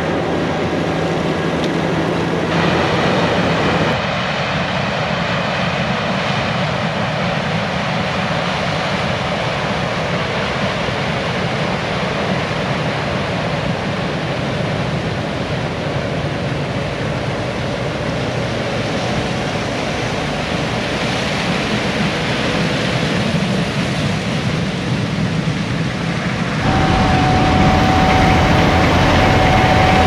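Heavy farm machinery running steadily: combine and tractor engines working through the corn harvest. The sound shifts abruptly a few seconds in and turns louder near the end, with a steady tone coming in.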